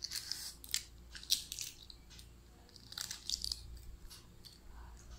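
Boiled duck egg (balut) shell crackling and snapping as fingers peel it away, in short clusters of sharp clicks.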